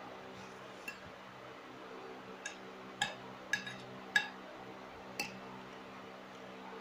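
Metal spoon clinking and scraping against a ceramic plate, about six short clinks with a light ring, the loudest about four seconds in. A steady low hum runs underneath.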